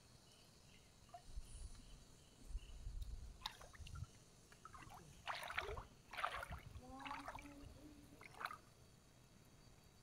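Shallow stream water splashing and sloshing in several short bursts about a second apart, with some low rumble before them.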